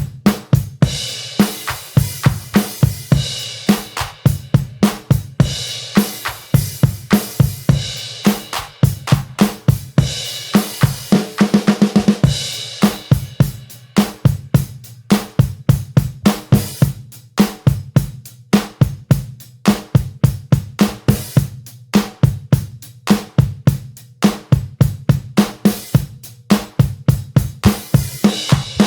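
Background music led by a drum kit, with kick, snare and cymbals keeping a steady beat and a quick run of drum hits about eleven seconds in.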